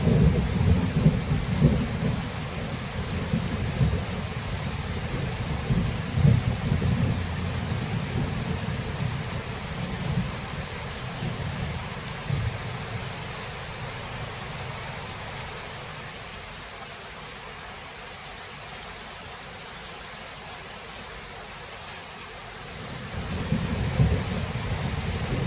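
Thunderstorm: steady rain hiss with rolling thunder. A low rumble at the start dies away over about a dozen seconds, leaving mostly rain, and a new rumble builds near the end.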